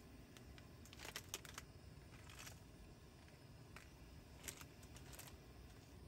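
Near silence, broken by a few short groups of faint clicks and light scrapes: a cooking utensil knocking and scraping against a pan while instant noodles are stirred in broth.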